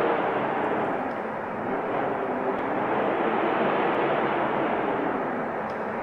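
Snowstorm wind blowing as a steady rushing hiss that swells and eases slightly, dipping a little about a second and a half in.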